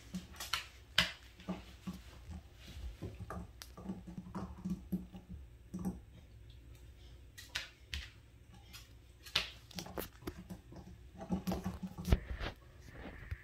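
Basset hound puppy gnawing on a metal cabinet drawer knob: irregular clicks and knocks of teeth against the knob and drawer.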